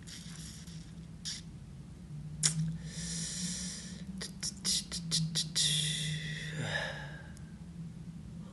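A person breathing and sniffing close to the microphone, with a quick run of sharp clicks in the middle and a short falling vocal sound about two-thirds through, over a low steady hum.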